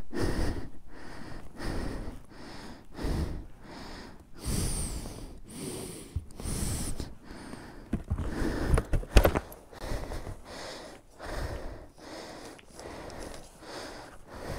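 Short breathy puffs and rustling right at the microphone, roughly two a second, with one sharp click about nine seconds in.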